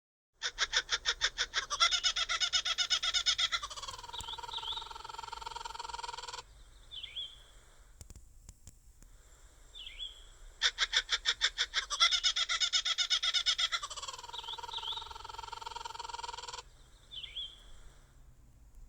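Recorded kookaburra call played by Google's 3D animal feature, heard twice in identical form. Each time a fast run of pulsed notes lasts about three seconds, then a long note falls and holds before cutting off suddenly. Short faint chirps come in the pauses.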